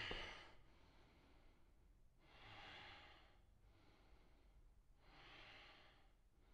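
A man breathing faintly and slowly while holding a deep kneeling back bend: a few long, soft breaths a couple of seconds apart.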